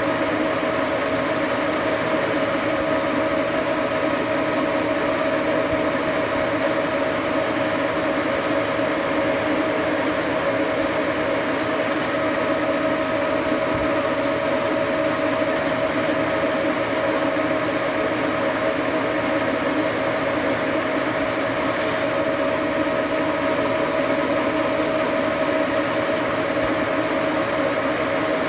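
Engine lathe running steadily while a grooving tool cuts rings into a spinning metal bar for a hose barb: a steady metallic whine over machine noise. A thin high tone comes and goes in stretches of a few seconds.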